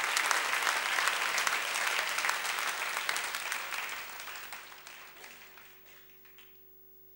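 Audience applauding, the clapping fading away over the last few seconds until it dies out.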